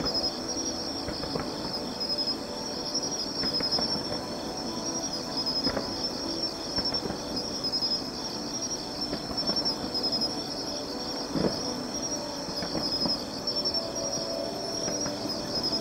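Crickets chirping in a steady, pulsing high trill. A few faint short thuds from distant fireworks sound beneath it.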